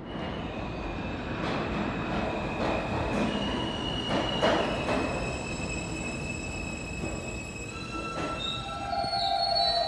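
R160 subway train rolling into the station and braking, its wheels squealing in several steady high tones, with a few sharp clacks from the wheels in the first half. Near the end the squeal shifts to lower tones and grows louder as the train slows to a stop.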